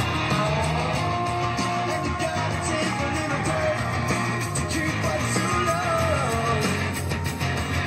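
Rock song with a sung vocal and guitar, playing through a pair of KLH Model 403A indoor/outdoor speakers with 4-inch polypropylene woofers.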